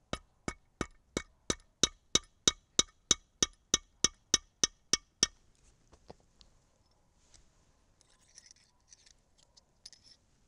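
Light metal-on-metal taps on a Lee Loader's steel die and rod, about three a second and evenly spaced, each with a short ring, stopping about five seconds in. Faint handling clicks follow.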